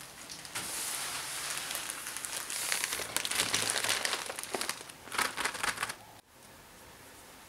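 Plastic poly mailer bag crinkling and rustling as hands handle and press on it, crackly and uneven, stopping about six seconds in.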